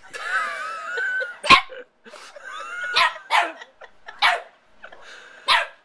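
Small white terrier puppy giving a wavering whine, then about five short, sharp barks.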